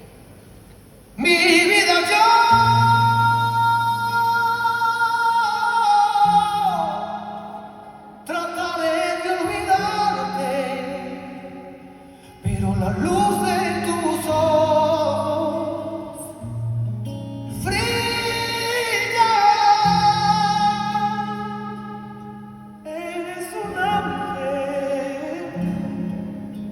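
Live flamenco-style singing with band accompaniment: a high voice sings long phrases of held, wavering notes, several seconds each, over sustained low bass notes.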